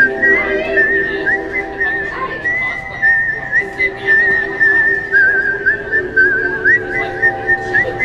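A whistled tune, warbling with quick trills, over background music with held chords; the whistling dips a little lower for a stretch past the middle.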